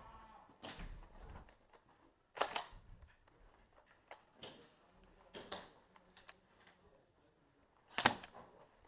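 Scattered sharp snaps of airsoft guns firing in an indoor arena, the two loudest about two and a half seconds in and near the end, with fainter clicks between.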